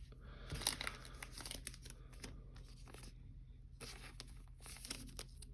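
Trading cards being handled, with faint rustling and scraping of card stock and plastic sleeves in a few short stretches.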